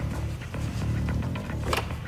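Background music with a steady bass line, and one short sharp noise near the end.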